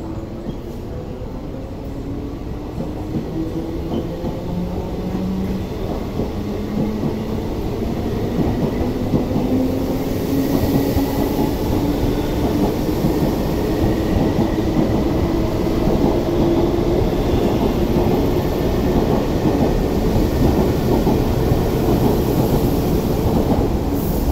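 MTR East Rail Line electric train running through the station without stopping: a motor whine rising steadily in pitch over wheel-on-rail noise, growing louder as the cars pass.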